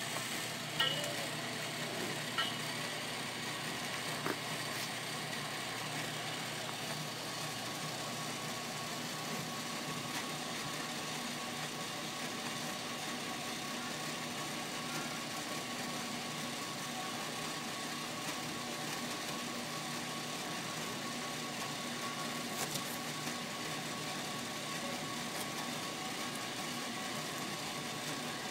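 Fuel dispenser pump running with a steady hum as fuel is dispensed, with a few light clicks in the first few seconds.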